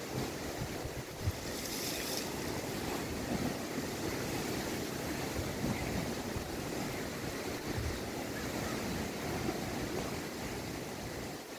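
Wind-driven lake waves breaking and washing in a strong wind, with wind buffeting the microphone; a brief louder hiss of surf about two seconds in.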